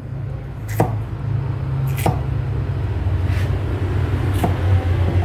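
Kitchen knife chopping chayote on a thick round wooden block: four sharp knocks of the blade on the wood, a little over a second apart. Under them runs a steady low hum.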